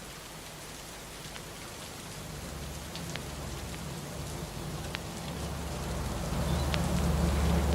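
Steady hiss of rain with scattered sharp ticks. A low droning rumble comes in about two and a half seconds in and swells steadily louder toward the end.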